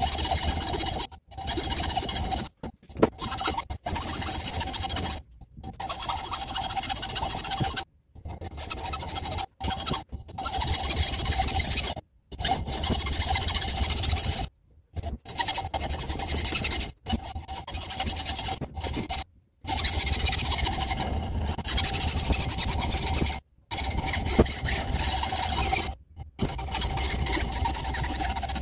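Hacksaw cutting through a wooden axe handle, trimming the stub off above the axe head's eye. Steady back-and-forth rasping with a squealing ring from the blade, broken by a dozen or so abrupt short gaps.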